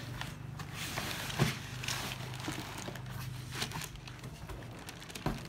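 Crinkling and rustling of a silver foil packaging bag being handled around a boxed power amplifier, with a couple of light knocks against the cardboard box.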